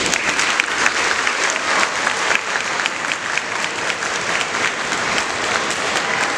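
A large audience applauding, many hands clapping at once in a steady, sustained ovation.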